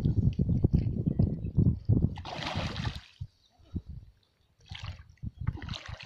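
Large hooked rohu carp thrashing at the water's surface on a fishing line, splashing in bursts: a strong splash about two and a half seconds in and more splashes near the end. A low rumble covers the first three seconds.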